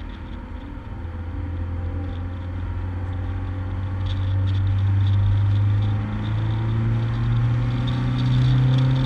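Renault Duster Oroch pickup driving on the open road: a steady low engine and road hum that slowly rises in pitch and grows louder as the car gathers speed.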